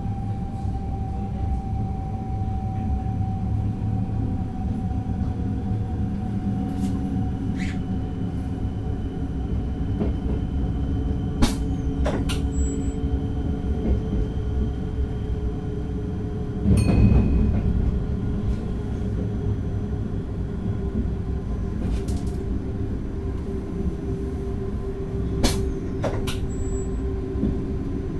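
Driver's-cab sound of an NS DDZ double-deck electric train running along the line: steady rumble with a faint whine that drifts slightly lower, a few sharp clicks, and a louder surge of rumble about halfway through.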